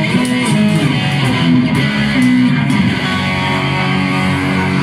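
Live band playing with an electric guitar in the lead, backed by a drum kit with cymbals.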